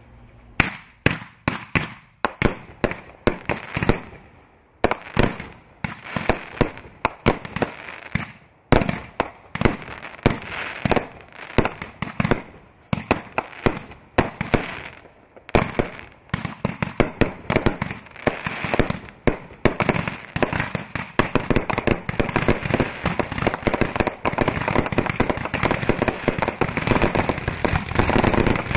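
Consumer aerial fireworks firing and bursting in a rapid string of bangs. The bangs are spaced out at first and come faster and faster until they run together into a nearly unbroken barrage of a fireworks finale.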